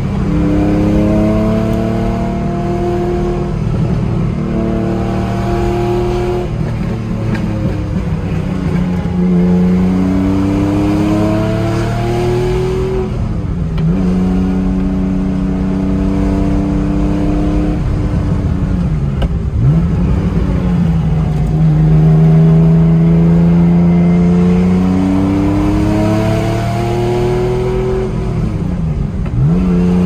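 1978 Porsche 911 SC's 3.0-litre air-cooled flat-six, fitted with 964 cams, headers and a Supertrapp exhaust, heard from inside the cabin while driving. The revs climb under throttle and then drop away sharply, several times over, with steadier running in between.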